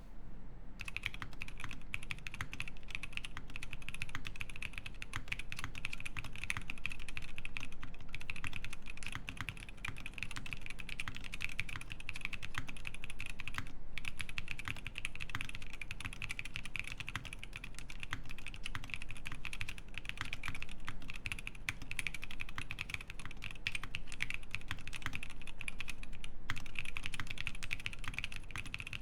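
Steady, fast typing on a Leaf65 mechanical keyboard with lubed Tecsee Jadeite switches in an aluminium plate and EPBT keycaps: a dense run of keystroke clacks, with short breaks about halfway through and near the end.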